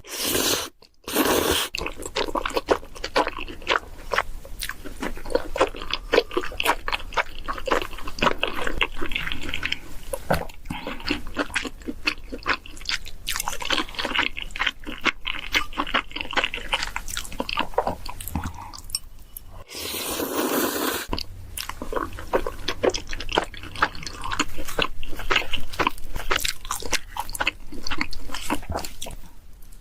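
Close-miked eating sounds: steady chewing with crunchy, wet bites. Two short, loud bursts come in the first two seconds, and one more comes just over two-thirds of the way through.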